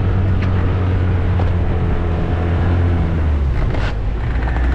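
Tohatsu 9.8 hp outboard motor running flat out, driving a small inflatable boat at about 17 knots, with rushing water and spray from the hull. A little over three seconds in, the engine note dips slightly lower.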